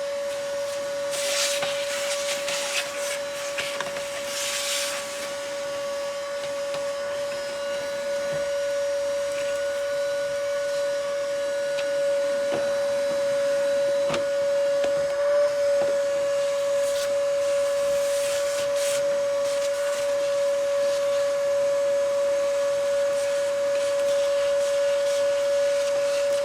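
HYCHIKA 18V cordless wet/dry shop vacuum running at full speed with a steady motor whine. Brief rushes of air and a few clicks come and go as the nozzle is worked over surfaces.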